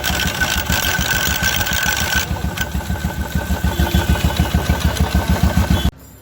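Royal Enfield Electra 350 single-cylinder engine running at idle with its clutch cover off, with a clattering 'khad khad' from the sprag (starter) clutch gear rubbing against the small chain sprocket; the mechanic traces this to a failed sprag clutch bearing. The sound cuts off suddenly near the end.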